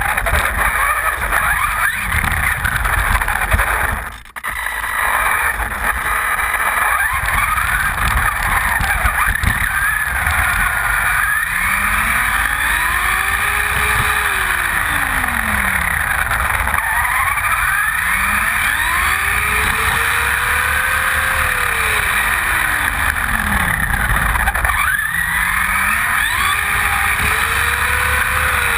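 Losi Mini-T RC truck driving on asphalt, heard from a camera mounted on the truck: its electric motor and gears whine, rising and falling in pitch several times as it speeds up and slows down, over a loud rough rumble of its small tyres on the pavement. The sound drops briefly about four seconds in.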